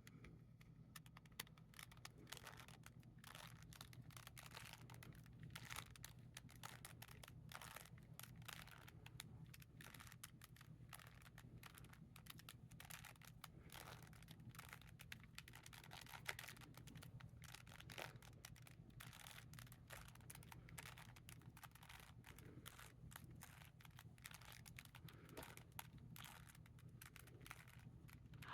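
Rubik's Cube faces being turned by hand: a faint, irregular run of small plastic clicks and clacks over a steady low hum.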